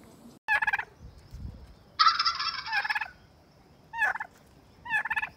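Turkey tom gobbling four times: a short gobble about half a second in, the longest and loudest one of about a second at two seconds, then two short gobbles near four seconds and near the end.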